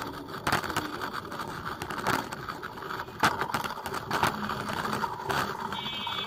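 Ride-along sound of a bicycle on a rough, potholed dirt street: irregular rattles and knocks from the frame over a steady road noise. A short high ringing tone sounds near the end.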